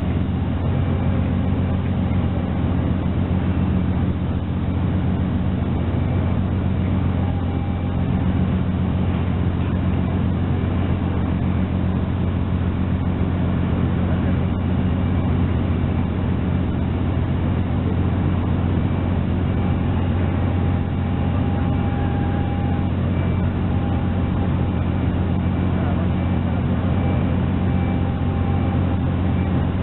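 Fishing trawler's diesel engine droning steadily as the ship passes close: a constant low hum with a second, higher tone above it.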